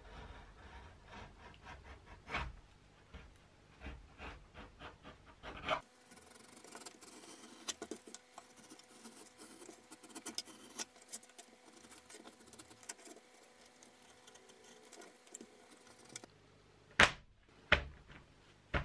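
A knife cutting and trimming thin leather pieces on a hard board: many short, irregular scraping strokes. Near the end come two or three sharp knocks, the loudest sounds.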